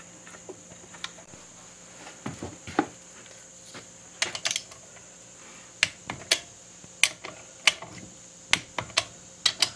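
Scattered sharp metallic clicks and clinks, about a dozen at irregular intervals, as steel bolts and a socket tool are handled and the bolts are started into an engine's crankcase cover.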